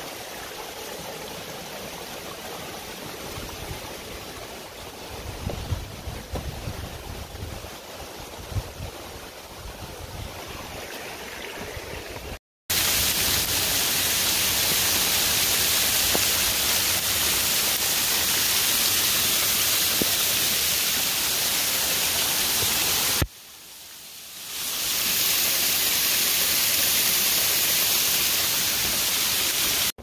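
Steady rush of falling water at Lulumahu Falls. Fainter at first, with a few low thumps, then much louder and closer after an abrupt cut about halfway through. It dips briefly a few seconds before the end and comes back up.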